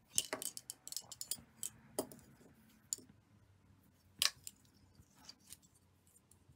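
Tatting thread and shuttles handled close to the microphone: a quick run of small clicks and rustles over the first three seconds, then scattered ticks with one sharper click about four seconds in.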